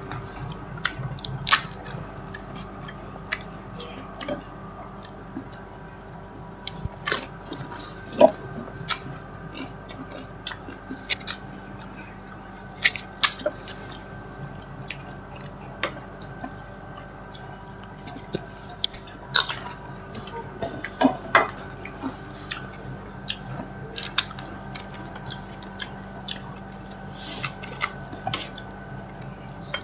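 Panipuri being eaten: the crisp, hollow puri shells crunch irregularly between bites and chewing, with a steady faint hum underneath.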